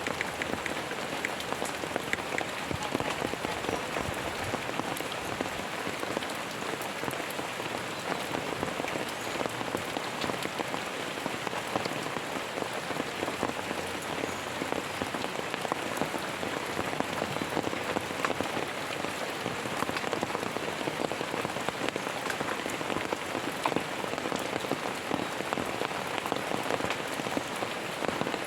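Steady rain falling on a surface, a dense patter of many small drops without let-up.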